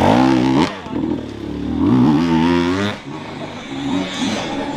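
Off-road dirt bike engine revved hard twice, its pitch climbing steeply each time: once right at the start, then again for a longer, higher rev from about a second and a half in that cuts off near three seconds.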